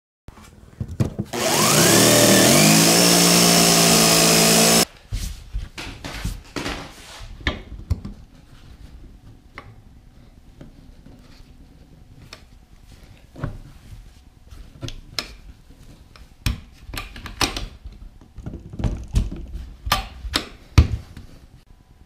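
A power drill spins up with a rising whine, runs steadily for about three seconds and cuts off abruptly, working on the white PVC lid where a stainless steel flush latch is being mounted. After that, scattered sharp clicks and knocks of hardware being handled and fitted into place.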